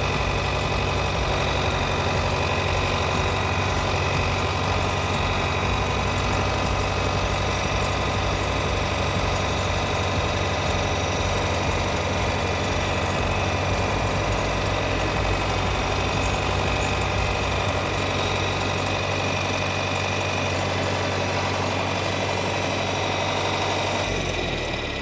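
The four-cylinder diesel engine of a John Deere 3010 tractor running steadily, with a shift in its sound just before the end.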